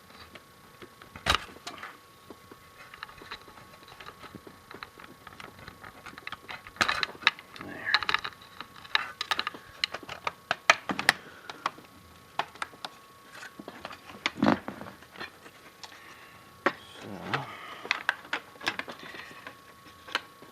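Irregular clicks, snaps and rattles of the plastic front panel and casing of a Sony HCD-S500 DVD player/amplifier being handled and pried apart during disassembly, with a few sharper knocks and a busy run of clicking in the middle.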